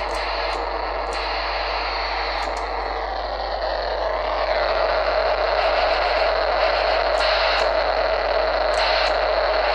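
Receiver hiss and static from an Icom handheld transceiver tuned to where the Kenwood TR-751 is transmitting out of band, around 139.6 MHz. A steady whistle gets louder about halfway through, after a brief falling whistle, with a few light clicks.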